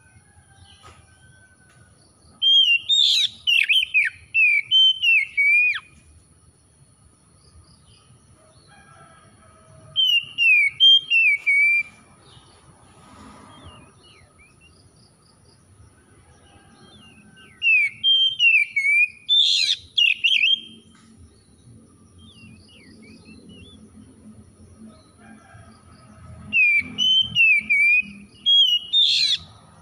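Oriental magpie-robin singing loud, varied whistled phrases in four bouts of a few seconds each, with pauses between them. A faint steady high tone runs underneath.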